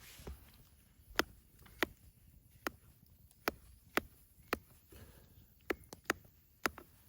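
A series of about ten sharp knocks, irregularly spaced roughly every half second to a second.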